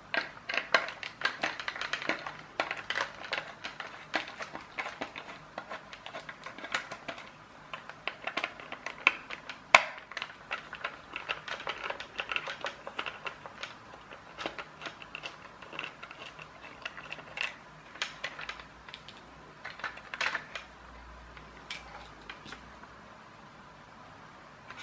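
A precision screwdriver turning small screws out of a toy's plastic circuit-board cover, then the plastic parts being handled: a string of irregular small clicks and scrapes, busiest in the first half, with one sharper click about ten seconds in.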